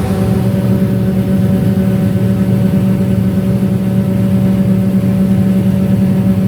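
Heavy vehicle's engine running at a steady speed: a constant low hum with steady higher tones, unchanging throughout.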